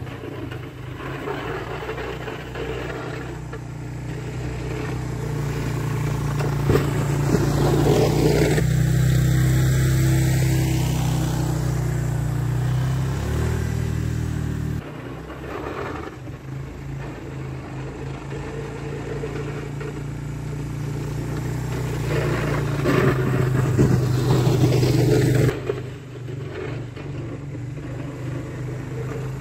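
A 2004 Suzuki Eiger 400 ATV's single-cylinder engine runs under load as it pushes snow with a front plow blade. It grows louder as the machine nears, then drops off abruptly about fifteen seconds in. It swells again and falls sharply a few seconds before the end.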